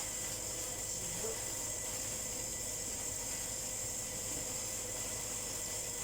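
Steady background hiss with faint constant tones, and no distinct event.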